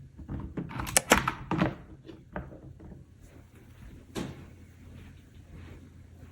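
IBM Model M keyboard's plastic top case being fitted back onto the base: a series of clicks and knocks, the loudest about a second in and another a little after four seconds.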